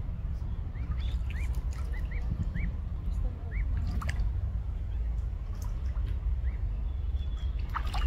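Mute swan cygnets peeping softly, a string of short rise-and-fall peeps mostly in the first half, with small splashes as they dabble their bills in the water. A steady low rumble runs underneath.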